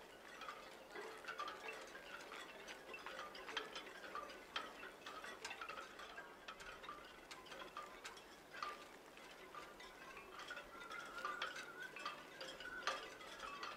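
Quiet, irregular tinkling of chime-like notes, a few short strikes a second with brief ringing tones, over a faint hiss.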